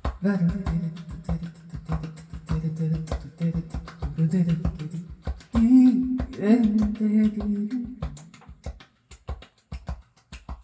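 Music played back from cassette on an Akai GX-73 tape deck: a song with a melody over a steady drum beat. Near the end the melody drops out, leaving only the beat.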